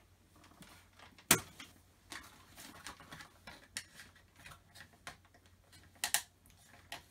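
Scattered clicks and light rustling of a toy blaster being worked free of its plastic packaging, with a sharp click about a second in and two more near the end.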